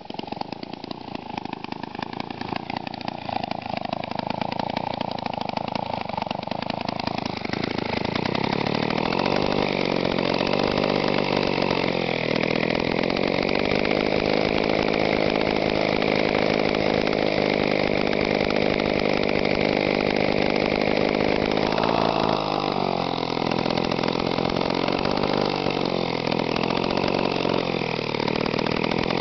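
Old Lombard gear-reduction chainsaw's two-stroke engine running, loud. It gets louder about a quarter of the way in, and its pitch dips and comes back up a few times. The saw has been brought back to life after years unused, with its points just cleaned.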